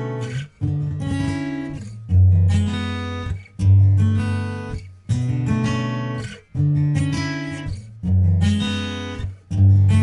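Background music: acoustic guitar strumming chords, a new chord struck about every second and a half and left to ring out.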